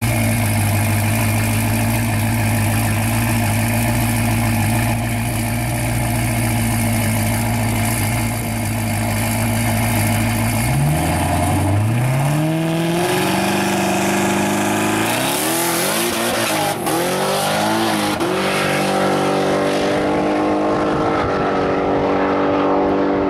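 Twin-turbocharged 6.2-litre V8 of a 2014 C7 Corvette running steadily at the drag strip start line, then launching about eleven seconds in on a full drag pass: the revs climb again and again with the pitch dropping at each upshift, and the engine keeps pulling as the car runs away down the track.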